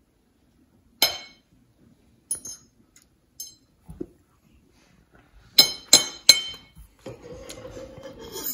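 An eating utensil clinking against a dish: one sharp ringing clink about a second in, a few light taps, then three quick clinks close together. A steady hum starts near the end.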